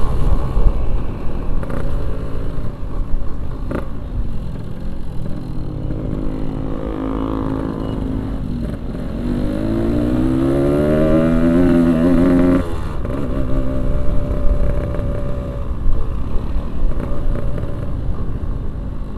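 Yamaha RX-King 135cc two-stroke single-cylinder motorcycle engine running on the move, on a nearly empty fuel tank. About halfway through it revs up in one long rising pull, then cuts off sharply and drops back.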